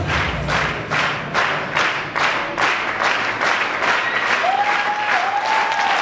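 Audience clapping in unison to a steady beat, about two and a half claps a second, as the act's music stops. Near the end a held, wavering high tone joins the clapping.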